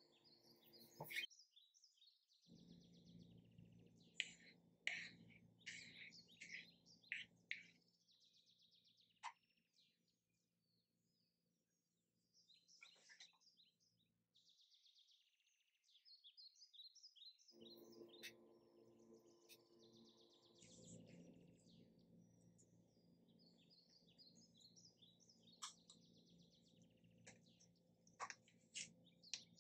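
Faint birdsong: many small birds chirping in quick short notes, over a low steady hum that cuts out and comes back abruptly a few times.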